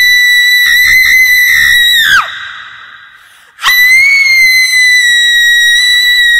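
A long, shrill scream held at one high pitch, breaking off with a falling pitch about two seconds in; a second scream of the same kind starts about a second and a half later and holds steady.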